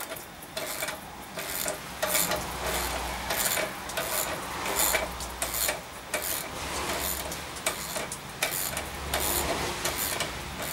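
Ratchet wrench cranking the screw of a homemade scissor jack, a rasping click with each short stroke in an even rhythm of about two strokes a second, as the jack lifts a trail bike under load.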